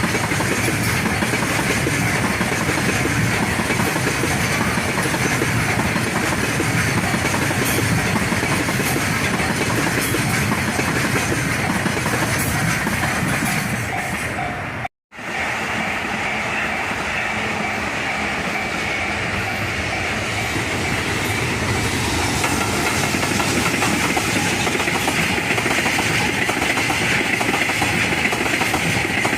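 Freight train wagons rolling past at speed, wheels clattering over the rail joints. The sound drops out for a moment about halfway through, then another stretch of passing freight train continues at the same level.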